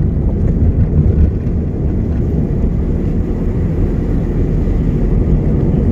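Steady low rumble of a car being driven on a paved road, heard from inside the cabin: engine and tyre road noise.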